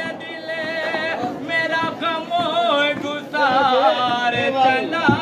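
A man singing a manqabat, an Urdu devotional poem, unaccompanied, drawing out long notes with ornamented, wavering pitch.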